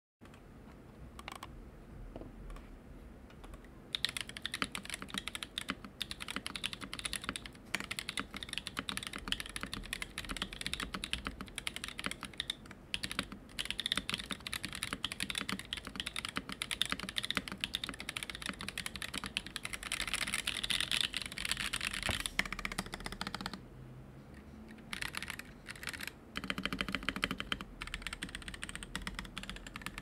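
Typing on a TrainingWheels40 40% mechanical keyboard fitted with unlubricated (dry) Zykos switches and Cherry-profile keycaps. A few scattered keystrokes give way about four seconds in to a fast, continuous patter of keys, which pauses briefly near the end before a few more short bursts.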